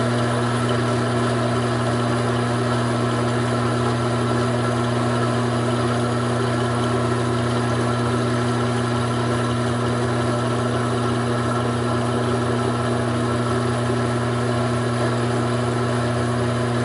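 Taig micro lathe running steadily with a strong, even motor hum while a parting blade is hand-fed into a 1-inch bar of 1018 steel, parting it off.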